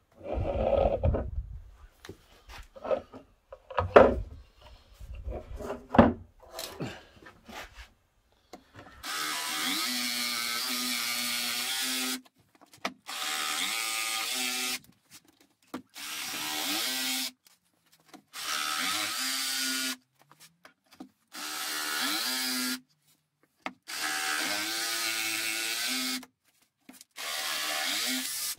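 Makita cordless jigsaw cutting through a laminated furniture board, run in seven short bursts of two to three seconds each from about nine seconds in, its pitch rising as each burst starts, cutting out a rectangular opening from drilled corner holes. Before the cutting, knocks and handling sounds as the board and saw are set in place.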